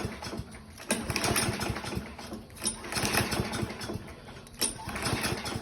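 Toro walk-behind lawn mower being pull-started, its engine cranking over on three pulls of the recoil starter about every one and a half to two seconds without catching: a mower that won't start.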